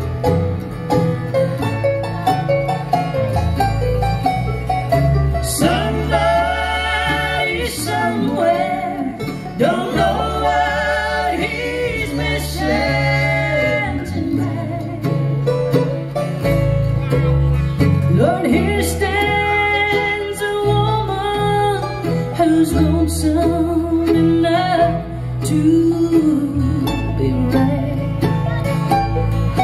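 Live bluegrass band playing: acoustic guitars, mandolin and upright bass, with a woman singing the lead melody. The opening seconds are instrumental; the singing comes in about five seconds in and runs in phrases with short breaks.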